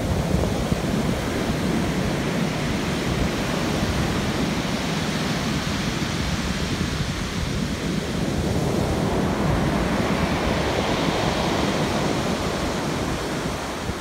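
Storm surf on a pebble beach: waves breaking and foamy water washing up over the stones in a steady rush, swelling in a longer wash about eight seconds in.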